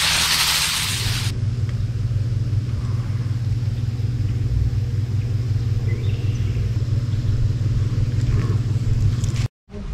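Loud hissing for about the first second, cut off sharply. A steady low motor rumble with a hum follows and stops abruptly near the end.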